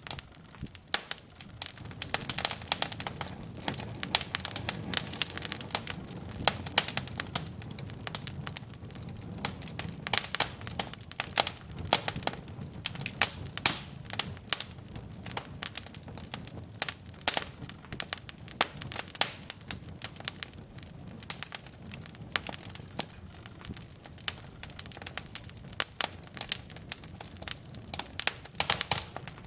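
Wood fire burning in a fireplace: irregular sharp crackles and pops from the burning logs over a low steady rumble of the flames.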